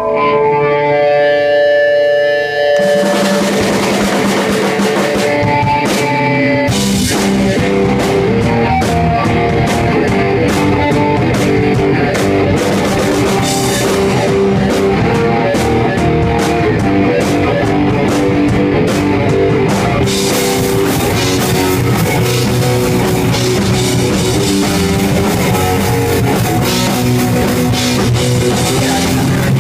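Live rock band playing: a guitar plays sustained notes alone for the first few seconds, then drums and the full band come in and play on.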